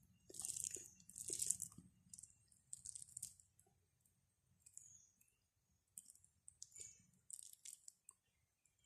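Faint, short crackling squelches of fingers mixing soft cooked rice with curry on a plate while eating by hand, several in quick succession in the first two seconds and again near the end.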